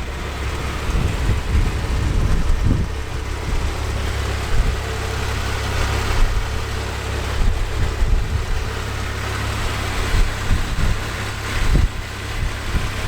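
Wind buffeting the microphone: a steady low rumble with irregular gusts.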